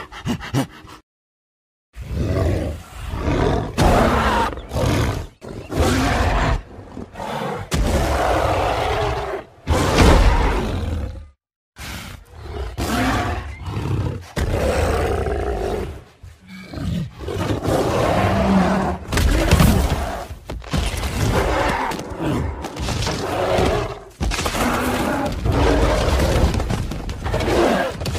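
King Kong's roars and growls from the 2005 film, a run of separate calls each a second or two long with short breaks between, starting about two seconds in.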